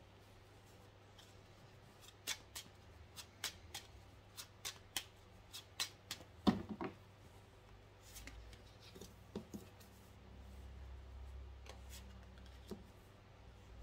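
A small deck of Katina fortune-telling cards shuffled by hand: a quick run of light card snaps and taps over a few seconds, followed by softer handling as cards are laid onto a tabletop.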